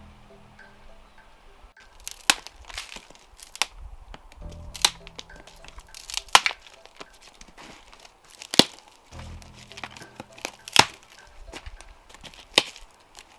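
Dry sticks snapping with sharp cracks, roughly every one to two seconds, as firewood is gathered and broken, over background music with a slow low note.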